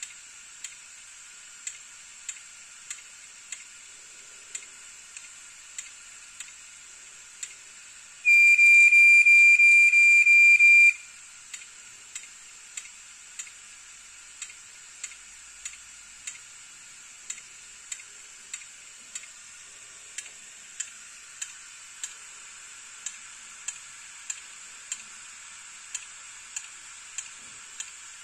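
Opened hard disk drive running with its read/write head arm ticking at an uneven rate of about one to two ticks a second over the steady hiss of the spinning platter. This is the repeated head ticking of a drive with errors. About eight seconds in, a loud high steady tone, like a beep, sounds for about two and a half seconds and then stops.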